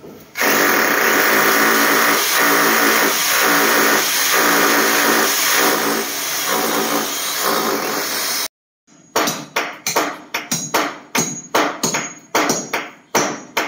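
Power drill running steadily as it bores a hole into the concrete wall for a moulding pin, for about eight seconds, then stopping abruptly. After that come sharp hammer blows, about two a second, with a ringing edge.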